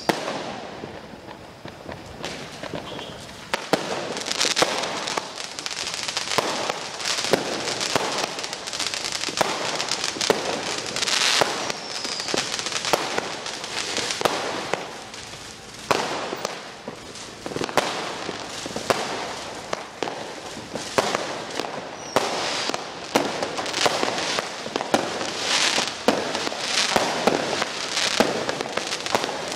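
Fireworks and firecrackers going off continuously: a dense, irregular run of bangs and crackles, with a few brief whistles.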